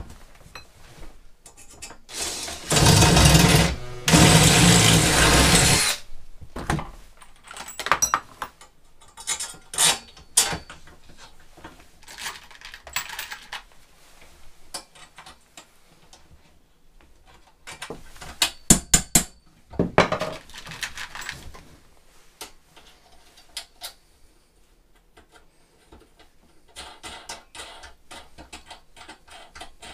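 Cordless drill running in two bursts of about two seconds each, a few seconds in. Then scattered clinks and clatters of hand tools and bolts against the steel cart frame.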